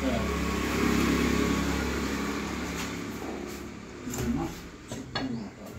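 A motor vehicle's engine running close by, loudest at the start and fading away over about three seconds. A couple of sharp knocks follow near the end, from the steel cleaver on the wooden chopping block.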